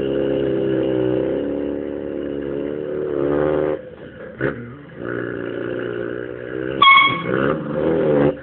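A person imitating a heavy truck with their mouth: a low, droning engine sound held in long stretches, with a brief break about four seconds in. A short honked horn imitation comes about seven seconds in.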